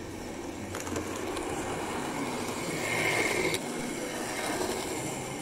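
Model train running on the layout track: wheels rolling with a steady rumble, and a faint motor whine about three seconds in.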